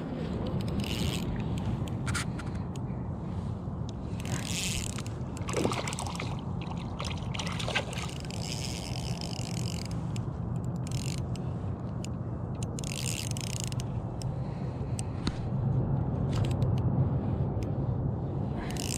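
Spinning reel being cranked in short spells and clicks of the reel as a hooked trout is played, over a steady low rumble.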